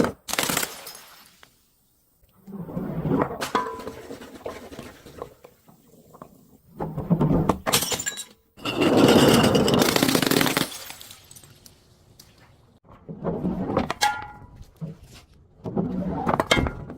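Glass bottles breaking and crunching in a series of about six separate bursts, some with short clinking rings of glass.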